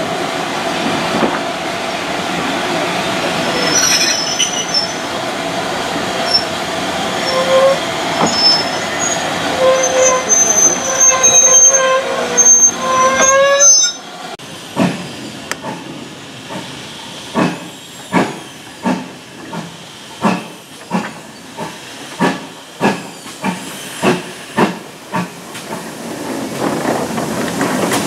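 Railway carriages rolling past, with the wheels squealing in several high steady tones that grow louder until a sudden cut about halfway through. After the cut, on board a moving train, a run of sharp regular beats comes about once or twice a second.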